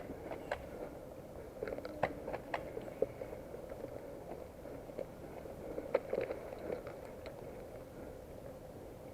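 Irregular crunching and rustling with scattered sharp clicks, a few standing out, over a steady background noise: close-up movement and handling noise.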